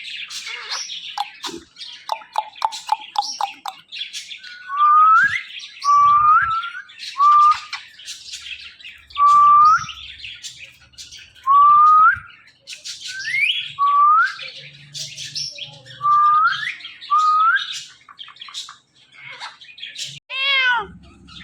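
Ringneck parakeet chattering quickly, then giving a run of short rising whistles, roughly one every second and a half, with squawky calls in between. Near the end it gives a meow-like call that bends up and down in pitch, a mimicked cat meow.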